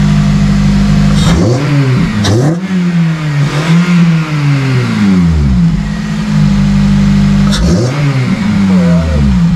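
Honda Civic FN2 Type R's 2.0-litre i-VTEC four-cylinder, heard at a freshly fitted Injen cold air intake with an open cone filter: idling steadily, then revved in a run of about five quick throttle blips starting about a second in, settling back to idle, and blipped again a few times near the end.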